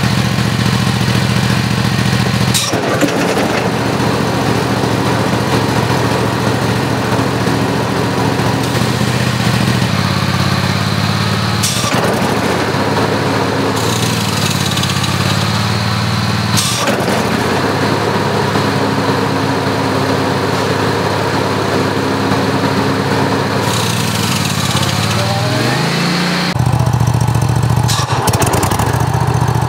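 Spartan mower engine running steadily with the cutting deck's belt and pulleys, heard close under the deck, in several takes spliced together with abrupt jumps in the sound. Near the end the engine speed rises briefly.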